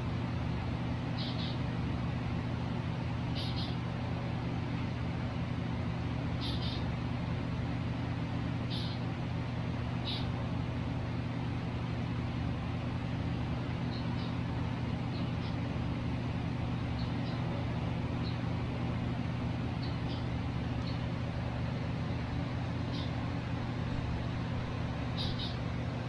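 A steady low machine hum fills the room, and short high chirps from caged pet birds come every few seconds, more often in the first half.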